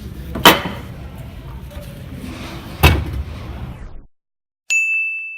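Two sharp knocks, about half a second in and near three seconds in. After a brief dead silence comes a single bright ding that rings on and fades, like an edited-in bell sound effect.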